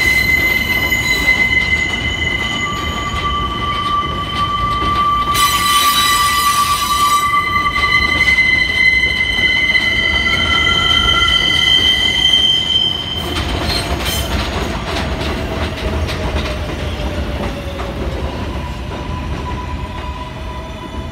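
Steel wheels of R143 subway cars squealing on a curve of elevated track: several steady high-pitched squeal tones over the low rumble of the train, with a brief hiss about six seconds in. The sound fades near the end.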